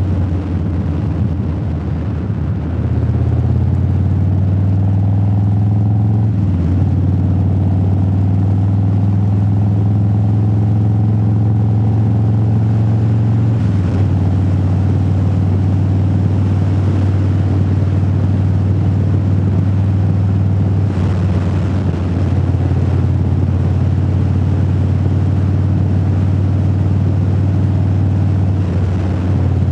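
Motorcycle engine running at road speed, heard from inside the rider's helmet with wind noise; the engine note shifts up and down a few times as the throttle and gears change.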